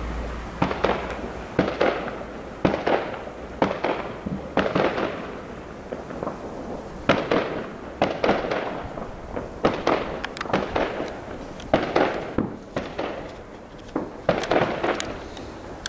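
Fireworks going off in a long, irregular run of bangs, about one or two a second, each trailing off in an echo.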